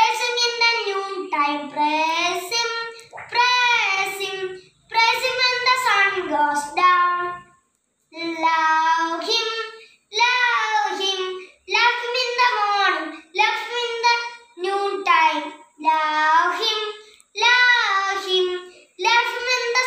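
A young boy singing a prayer song unaccompanied, in short melodic phrases with brief pauses for breath between them.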